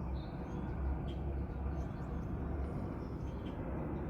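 Steady low hum and rumble of background noise in a greenhouse, with a few faint short high chirps over it.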